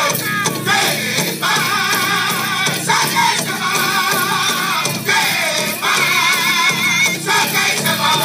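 Powwow drum group singing a chicken dance song: several voices in high, wavering unison over a steady beat on a big drum.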